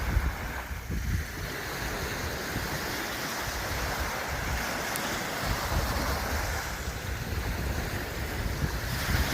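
Ocean waves washing onto the shore in a steady wash, with wind buffeting the microphone as a gusty low rumble.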